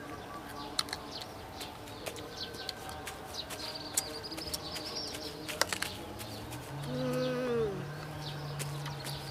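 Crisp bites and chewing on unripe green mango, heard as scattered short crunches, over birds chirping. A low steady buzz sets in near the end.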